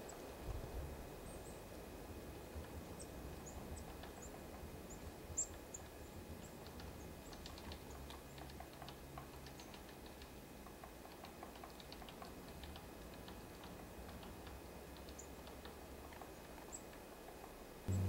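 Small songbirds at a seed feeder: faint, scattered high-pitched chirps with many soft ticks of pecking and landing, and a sharper click about five seconds in.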